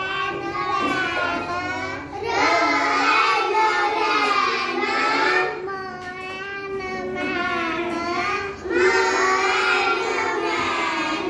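A young girl's voice reading aloud from a picture-word primer in a sing-song chant, the words drawn out on long held notes. It goes in several long phrases with short breaks between them.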